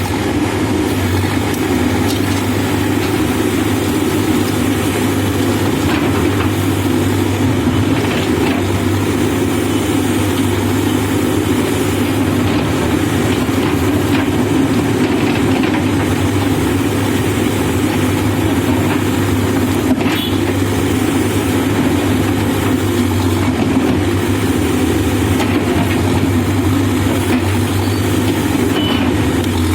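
Backhoe loader's diesel engine running steadily at an even speed, a constant low hum.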